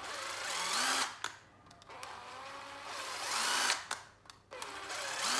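Hitachi cordless impact driver run unloaded in three short trigger pulls: each time the motor whines up in pitch and winds back down.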